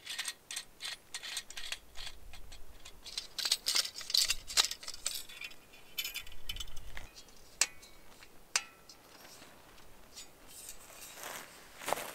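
Metal clicks and scrapes as a red-handled pruning saw is handled and its blade set up: a quick run of clicks over the first few seconds, then a few single clicks.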